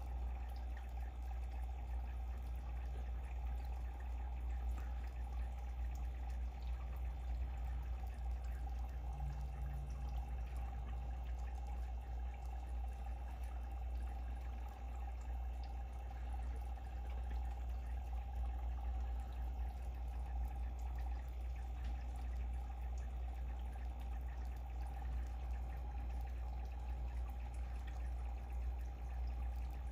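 Steady trickling and bubbling water from aquarium filtration over a constant low hum, unchanging throughout.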